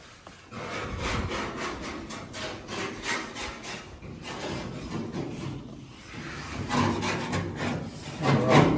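Repeated rough rasping strokes, like a tool scraping or filing, with a louder passage near the end.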